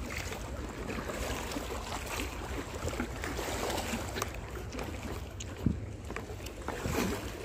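Wind rumbling on the microphone over sea water washing against breakwater rocks, with a few light knocks, the sharpest about two thirds of the way through.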